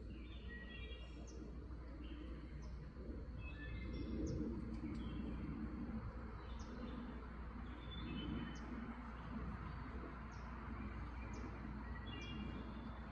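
Small birds chirping and calling, with short high notes repeating roughly once a second, over a steady low background rumble.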